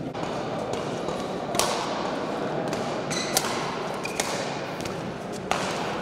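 Badminton rackets smacking a shuttlecock in a rally, three sharp hits about two seconds apart that ring in a large hall, with smaller taps and a couple of short squeaks in between over a steady hall murmur.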